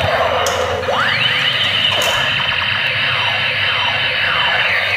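Battery-powered toy tank's electronic sound effects: a busy, repeated mix of rising and falling siren- and laser-like sweeps over a held high tone, played while the toy drives.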